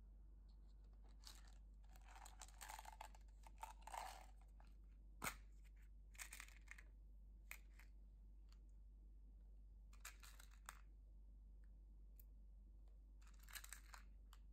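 Faint, short bursts of crinkling and clicking from a thin clear plastic cup being handled while small plastic buttons are tipped into a bowl of slime, with one sharper click about five seconds in.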